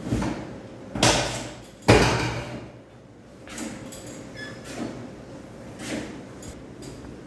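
Three sharp thumps in about two seconds, the third the loudest, then softer knocks and rustling, from a patient being handled during a chiropractic treatment.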